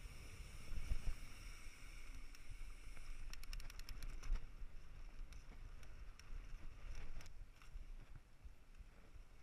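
Mountain bike riding over a dirt trail: wind rumbling on the camera microphone over tyre and bike noise, with a quick run of clicks about three and a half seconds in and a few more around seven seconds.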